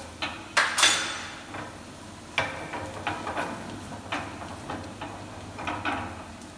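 Kitchen utensils clinking and scraping against a frying pan and bowls while a sauce is stirred. A sharp ringing clink about a second in is the loudest sound, followed by a string of lighter knocks and scrapes. A low steady hum runs underneath.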